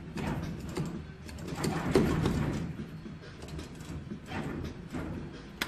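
Claw machine mechanism running: the gantry motor and claw whir and clatter as the claw is moved and lowered over the plush toys, with a sharp click near the end.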